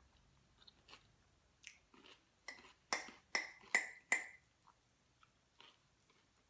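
Close-up eating sounds: chewing, with a run of four or five sharp clicks about half a second apart around the middle.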